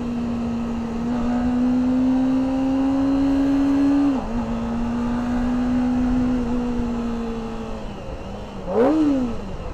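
Kawasaki ZX-25R's 250 cc inline-four engine through its stock exhaust, running at high revs under way with a steady high note. The pitch climbs slightly, dips briefly about four seconds in, then falls off gradually before a quick rev up and down near the end.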